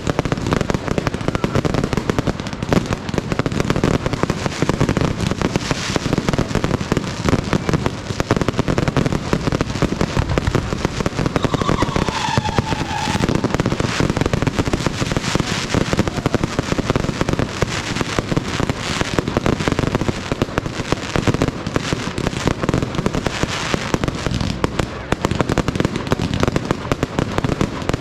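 Fireworks display going off: a loud, dense, unbroken crackle of rapid cracks and bangs. A brief falling tone sounds near the middle.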